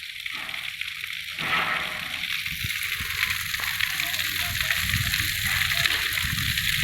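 Waterfall: a steady rush of falling water, a continuous hiss that grows louder about a second and a half in.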